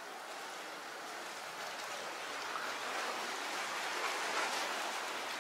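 Steady hiss of sea water washing against the rocks, growing a little louder about halfway through.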